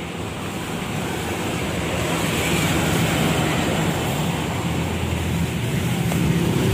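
A large coach bus driving past close by: steady engine and tyre noise that grows gradually louder, with some wind on the microphone.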